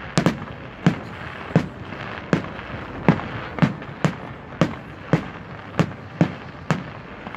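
An aerial fireworks display firing a steady volley of shell bursts: about a dozen sharp bangs, one every half second or so, over a continuous noisy background.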